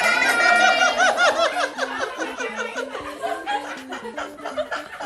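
Several people laughing and exclaiming in surprise, loudest in the first two seconds and tapering off, over a soft background melody.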